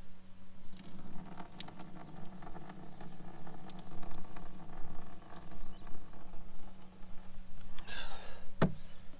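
Water pouring from a tilted stainless steel pot through its strainer lid into a concrete sink as boiled spaghetti is drained, then one sharp clank of the metal pot near the end.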